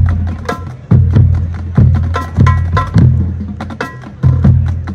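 Marching band drumline playing a cadence: heavy low booms about once a second under quick, sharp stick clicks and rim hits.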